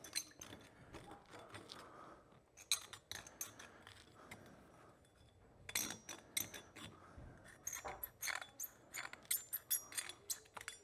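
Steel pick scraping and clicking inside the piston seal grooves of a motorcycle brake caliper, digging out old hardened crud so the new seals will seat. Light, irregular ticks come in short flurries, busiest in the second half.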